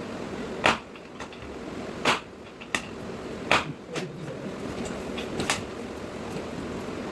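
Chiropractic drop-table sections dropping under adjustment thrusts: four sharp clacks about a second and a half apart, with softer knocks between them, over a steady background hum.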